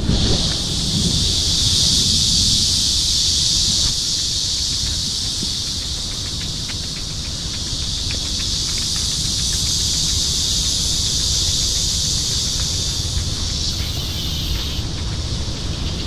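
Cicadas droning in a steady, high chorus in the trees, with wind buffeting the microphone underneath.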